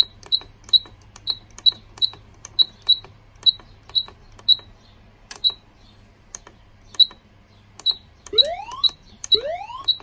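Pertronic F100A fire alarm panel's keypad beeping at each key press as test device numbers are entered: short, high, single-pitch beeps at an uneven pace of about two a second. Near the end come two short rising tones, about a second apart.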